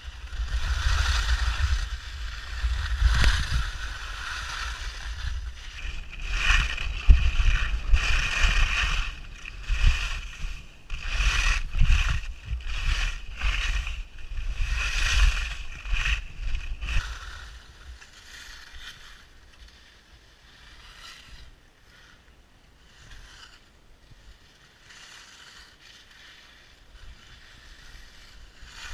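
Skis swishing and scraping through soft snow in a run of turns, with wind rumbling on the helmet camera's microphone. The turns come as repeated loud surges for most of the first two-thirds, then the sound drops to a quieter glide.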